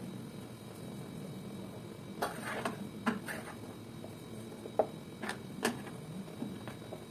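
Wooden spoon stirring a cooking milk-and-cream mixture in a nonstick saucepan, giving irregular light knocks and scrapes against the pot, a quick cluster about two to three seconds in and a few single knocks near five seconds.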